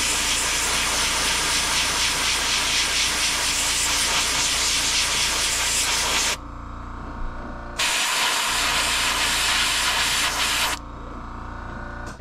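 Gravity-feed airbrush spraying paint: a loud, steady hiss of compressed air held for about six seconds, cut off for a second and a half, then held again for about three seconds. A fainter steady hum carries on in the gaps.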